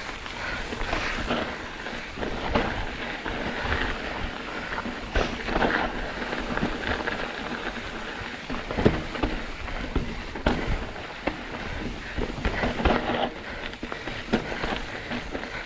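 Mountain bike riding over rocky trail: the bike rattles and clatters with irregular knocks as the tyres hit rocks, over a rumble of wind and tyre noise. Squealing disc brakes come and go, the brakes the rider himself apologises for.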